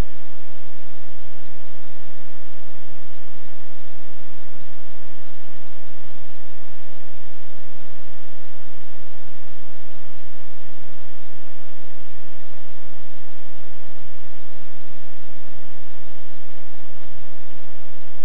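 Steady electrical hum and hiss with a few constant whining tones, with no change and no other event.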